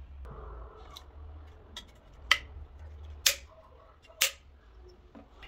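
A series of sharp clicks or knocks: three loud ones about a second apart, with fainter ones between, over a low steady hum.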